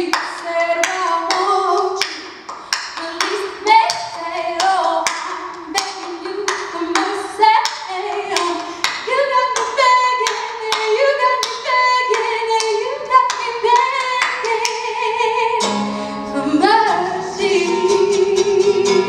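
A woman singing live over a steady beat of sharp claps or taps, about two a second. About three-quarters of the way through, an acoustic guitar comes in strumming chords.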